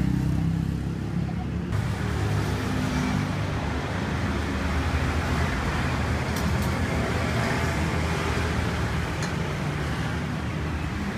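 Steady traffic noise from vehicles passing on the street, with a few faint clicks in the middle.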